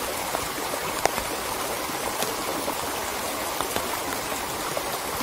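Small stream running steadily over its bed, with a scattered tick of raindrops or drips here and there.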